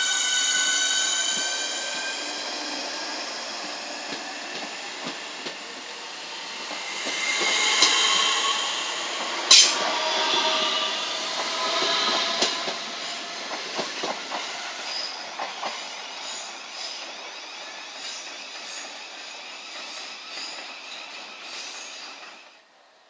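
Southeastern electric multiple unit pulling away over the junction: a whine of several pitched tones in the first couple of seconds, then wheel squeal and a run of sharp clicks from the wheels over the rail joints and points, the loudest click about nine seconds in. The sound fades as the train recedes and cuts off near the end.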